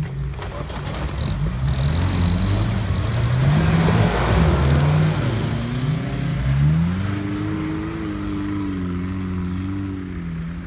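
Off-road SUV engine revving hard, the pitch rising and falling as the vehicle claws up out of an icy stream, with a hiss of spinning wheels throwing water and slush that is loudest a few seconds in. The engine then holds higher revs with a slightly wavering pitch.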